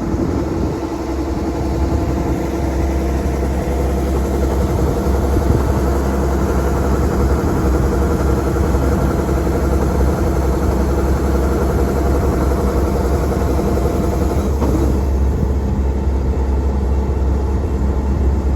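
A heavy engine running steadily with a deep, even drone.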